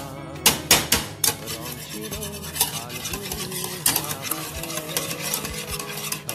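Wire balloon whisk beating eggs in a bowl: rapid, steady clicking and scraping of the wires against the bowl, with a few louder clacks in the first second and a half.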